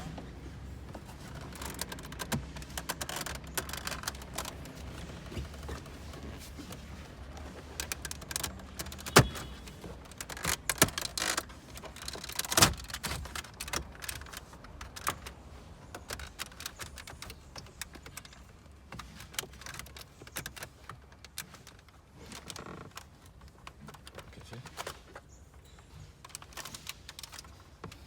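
Irregular clicking, rattling and knocking of hand tools and loose parts being handled while a car's dashboard is taken apart. A few louder knocks come about nine, eleven and twelve and a half seconds in, and the clicking thins out later on.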